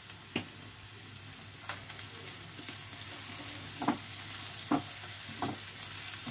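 Chopped onions with ginger and garlic powder frying in hot oil in a nonstick pan: a steady sizzle. A silicone spatula stirs through them, knocking and scraping against the pan several times.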